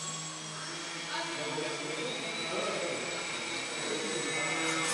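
Small electric motor and propeller of an indoor RC model airplane running steadily in flight, a thin high whine, with a slight rise in pitch about halfway through.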